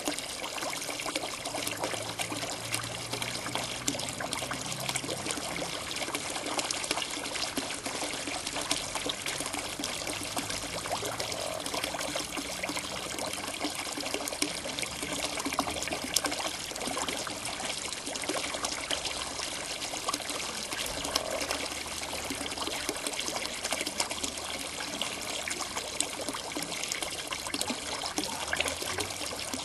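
Steady trickling and splashing of water from a garden pond pump's outflow, with faint low croaks of common frogs in the pool beneath it.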